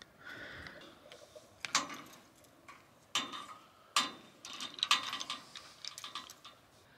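Metal clicks and scraping as a swageless rigging terminal is screwed together by hand tools onto stainless steel wire: four sharp clicks roughly a second apart among lighter ticks and scrapes.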